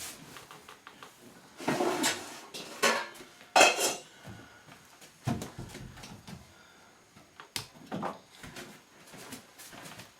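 Metal pans and cookware clattering and clanking as a baking pan is got out: a series of separate clanks, the loudest about three and a half seconds in.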